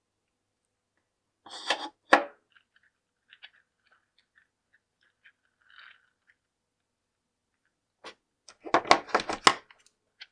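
Handling noises as a slime-filled rubber balloon and a pair of scissors are handled over a glass bowl: a rustle and a sharp knock about two seconds in, faint scattered ticks, then a quick run of clicks and rubs near the end.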